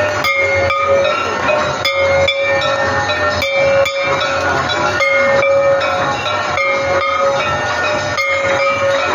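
Aarti bells and cymbals clanging in a steady beat of about two strokes a second, their metallic ringing tones held between strokes over a constant din.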